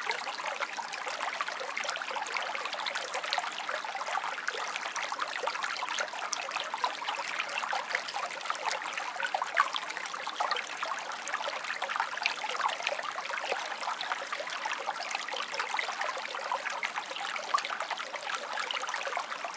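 Small stream flowing and trickling, a steady babble of many small splashes and gurgles.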